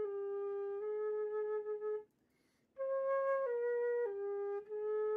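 Solo flute playing a slow melody in long held notes that step up and down, with a short breath pause about two seconds in.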